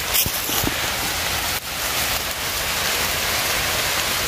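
Rain of large drops falling steadily on forest leaves and leaf litter, an even hiss throughout. A few brief knocks sound in the first second.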